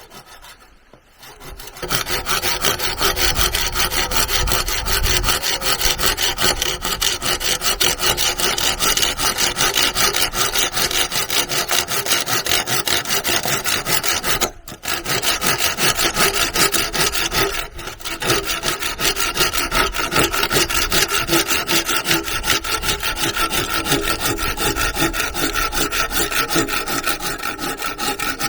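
A hand saw cutting through wood in fast, steady back-and-forth strokes. It starts about two seconds in and pauses briefly twice around the middle.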